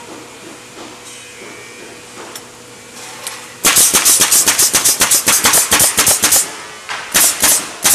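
Rapid hammering strikes on wood, about seven a second for nearly three seconds, then a short second run near the end, over a steady hum of factory machinery.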